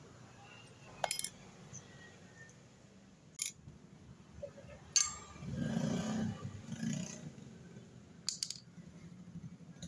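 Several sharp metal clinks and knocks, like hand tools and parts being handled, with a short, louder rough sound in the middle.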